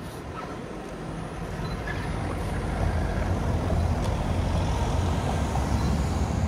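Low engine rumble, growing louder over the first few seconds and then holding steady.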